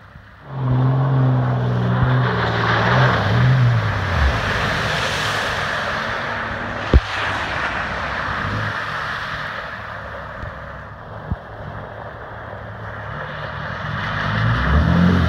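Off-road trucks' engines revving as they drive through shallow water, with a continuous wash of spray and splashing. An engine note drops in pitch about four seconds in, and near the end a lifted Dodge Ram pickup's engine grows louder as it comes through a puddle.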